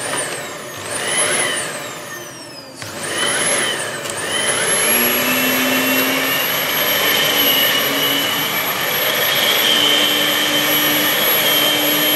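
Dyson DC15 upright vacuum cleaner running. Its motor whine rises and sinks twice in the first few seconds, then settles into a steady high whine about four seconds in. It runs with little suction because a seal at the base is missing.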